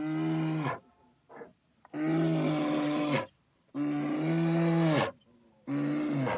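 A bear calling repeatedly: a run of long, steady-pitched calls, each about a second long, with short pauses between them.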